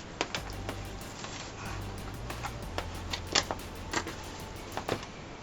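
A dozen or so sharp, irregular clicks, like hard plastic parts or keys being handled, over soft background music with a steady beat and a changing bass line.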